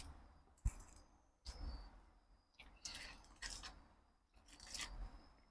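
Faint, intermittent chewing and wet mouth sounds of someone eating food close to the microphone, with a soft click about a second in.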